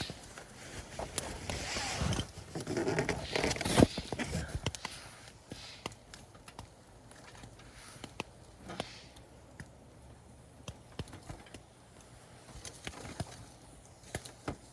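Wood campfire crackling with scattered sharp pops. Rustling and scraping handling sounds fill the first four seconds or so.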